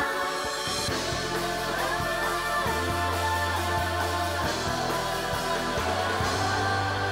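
Opening theme song in a rock style: a sung vocal line over electric guitar, a held bass line and a steady drum beat.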